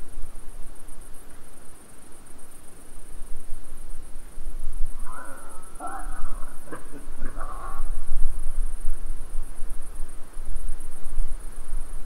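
Insects chirping steadily over a low rumble. About five seconds in, an unseen animal gives a short run of calls with a few sharp knocks, lasting about three seconds, which the uploader takes for a wild boar.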